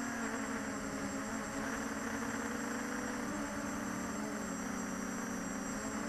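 The four brushless motors and two-blade props of a ZMR-250 FPV quadcopter, heard from its onboard camera. They make a steady buzzing hum whose several close pitches shift slightly as the throttle changes.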